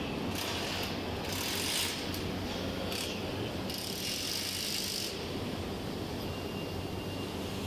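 Assembly-line workshop noise in a three-wheeler motorcycle factory: a steady low machinery hum with several short bursts of hiss in the first five seconds.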